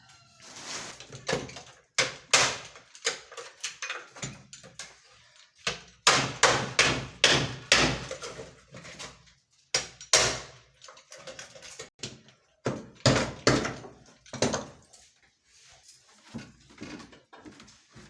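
Irregular knocks, thuds and scrapes from hands-on building work, coming in bursts with short pauses between.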